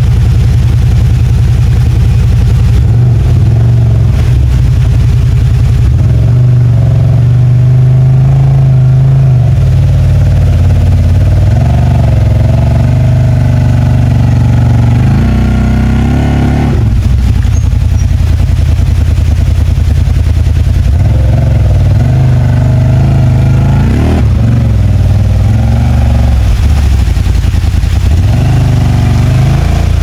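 CFMOTO ZFORCE 950 HO Sport side-by-side's V-twin engine running under load, revving up and easing off again and again as the machine climbs over rock. A little past halfway the revs drop away briefly before picking up again.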